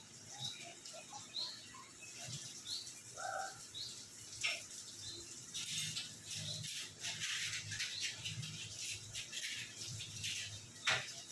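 A few short, high bird chirps, then stretches of hissing noise with scattered clicks from about halfway through.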